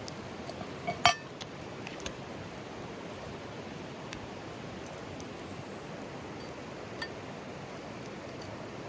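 A sharp clink of camp tableware about a second in, ringing briefly, with a few lighter clicks after it, over the steady rush of the mountain stream.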